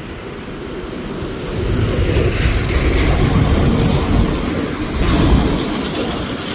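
Boeing 787-9 Dreamliner's jet engines rumbling as it passes on approach to land, swelling about two seconds in and staying loud, easing slightly near the end.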